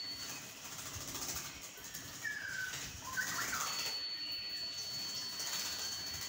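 A caged Javan myna bathing, fluttering its wings and splashing in its water dish, with a couple of short chirps about two to three and a half seconds in. A thin steady high whine runs through the second half.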